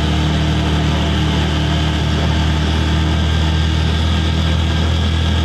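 Vehicle engine running steadily with a low hum, heard from inside the vehicle on a winding road.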